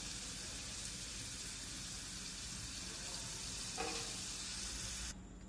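Hot oil sizzling steadily in a pan as golden-brown bitter gourd (karela) slices deep-fry. The sizzle cuts off abruptly near the end.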